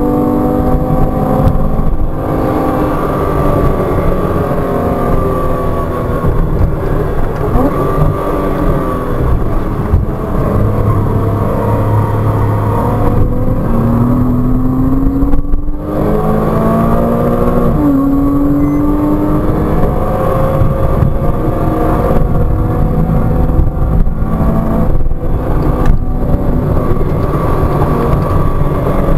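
Porsche Cayman 987.2's 2.9-litre flat-six heard from inside the cabin, driven hard: revs climb and fall repeatedly through acceleration, braking and gear changes, dropping to second gear around the middle and pulling back up.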